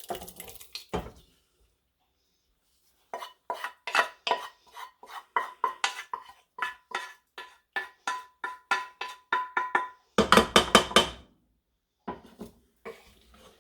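A spoon scraping and knocking against a pot while sauce and peas are scooped into cooked pasta: a steady run of ringing strokes, about three a second, ending in a quicker, louder flurry.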